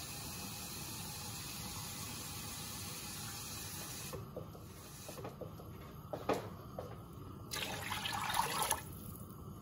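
Water running steadily until it is shut off about four seconds in, then a few light knocks. Near the end, water is poured from a plastic jug into a large cooking pot of spiced liquid, the loudest sound.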